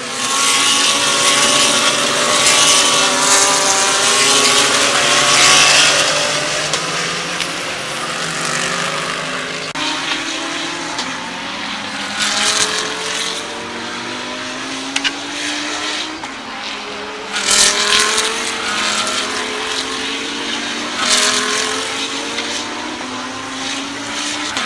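GT3 race cars passing on track one after another, their engine notes climbing and dropping in pitch through the gearshifts. The loudest pass fills the first six seconds, and more cars come by close at about 12, 17 and 21 seconds in.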